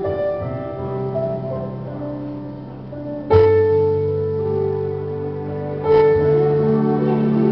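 Keyboard playing slow, sustained piano-sound chords, with a louder new chord struck about three seconds in and another about six seconds in.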